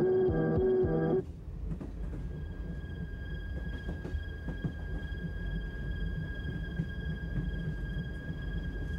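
Music stops abruptly about a second in. After it comes a train running on rails: a low steady rumble with faint irregular knocks and a thin, steady high whine over it.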